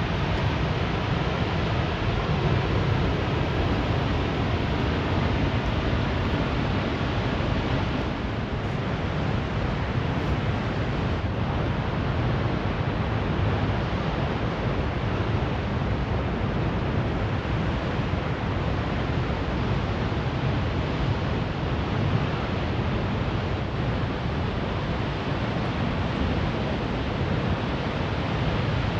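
Steady rushing noise of a waterfall heard from the canyon rim, an even hiss with no let-up.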